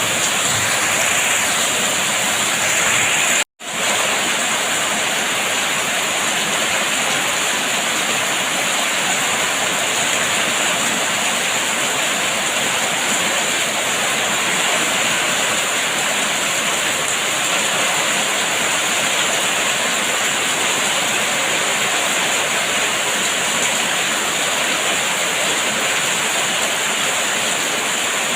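Steady rain falling: an even, continuous hiss of water, broken once by a split-second cut to silence about three and a half seconds in.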